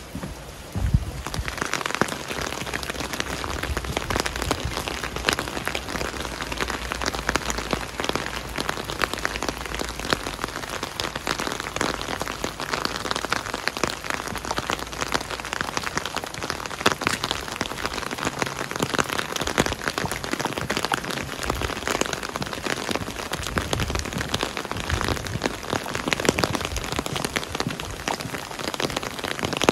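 Steady rain falling on a hard surface, a dense patter of drops, growing clearly louder about a second and a half in.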